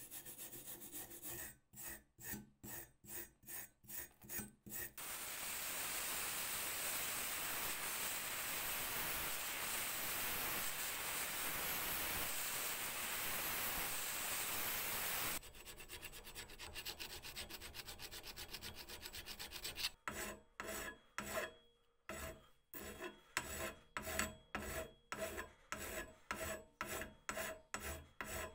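A hand wire brush scrubbing rust off a steel tool handle in quick strokes. Then an angle grinder with an abrasive disc runs steadily for about ten seconds on the rusty tool head, and in the last third a flat file strokes along a rusted saw blade, about two strokes a second.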